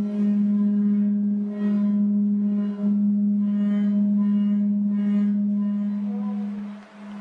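A large round metal plate singing with a steady low hum and ringing overtones, set going by a rubber ball rubbed along its rim; the higher overtones swell about once a second. Near the end the hum dips and other gliding notes come in.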